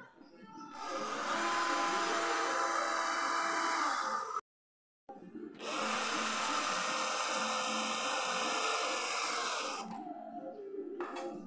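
Cordless drill running in two long bursts of about four seconds each, working through a steel hinge into an aluminium door frame.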